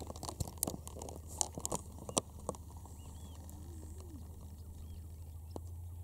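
A quick run of crunching clicks and knocks over the first two and a half seconds, then a few faint bird calls over a low steady hum.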